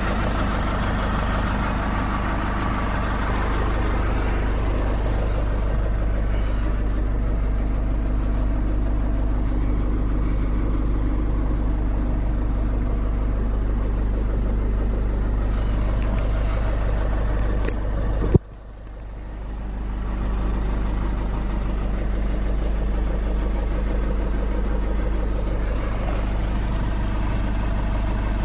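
Nissan NV350 Caravan's 2.5-litre diesel engine running steadily with a low hum. About eighteen seconds in there is a sharp click, after which the sound drops and then builds back over a couple of seconds.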